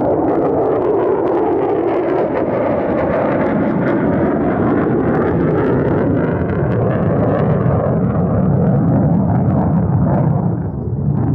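Lockheed Martin F-35 Lightning II's single afterburning turbofan making a loud, rumbling jet roar as it flies past, the roar sinking lower in pitch as the jet goes by.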